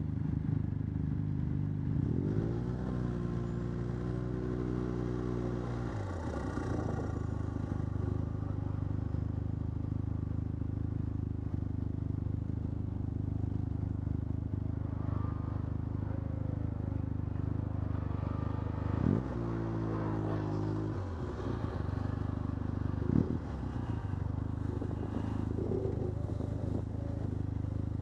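Arctic Cat F1100 Turbo snowmobile engine running at low throttle, revving up a couple of seconds in and holding for a few seconds, then revving again about two-thirds through before dropping back. A single short knock comes near the end.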